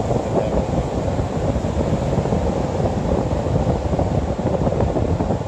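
Steady rumble of wind buffeting the microphone, over the constant wash of surf breaking on the beach.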